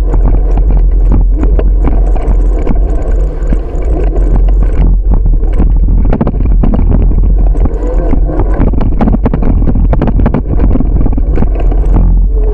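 Road rumble and wind noise from a camera mounted on a moving bicycle, with constant small rattles and knocks as the bike rolls over the pavement.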